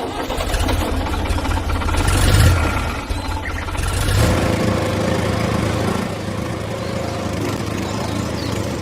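A small engine running steadily, swelling louder about two and a half seconds in.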